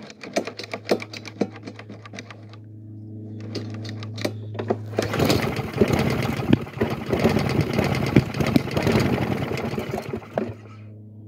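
Lawn mower engine cranked on the pull cord, then firing on fuel dribbled into its intake about five seconds in and running for about five seconds before cutting out: it has spark.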